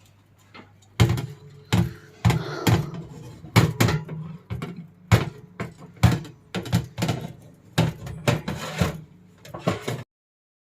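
Irregular knocks and clatters of kitchenware, such as a baking tray and oven rack being handled, over a low steady hum. The sound stops abruptly about ten seconds in.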